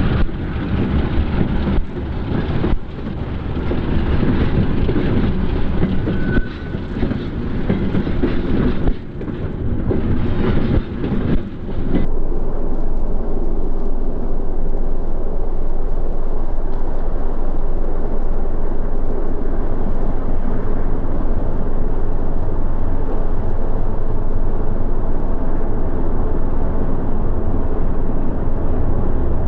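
Union Pacific diesel-hauled passenger train passing close by, its cars rumbling and rattling unevenly. About twelve seconds in, the sound cuts to a steadier, lower rumble while a train is still far off.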